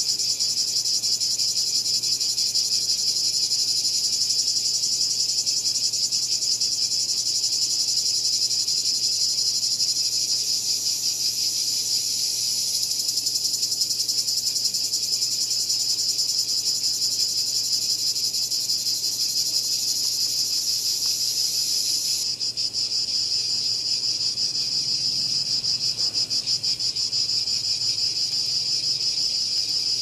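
Cicada calling: a continuous, high-pitched, fast-pulsing buzz. About two-thirds of the way through, the highest part of the buzz cuts off abruptly and the call goes on a little lower.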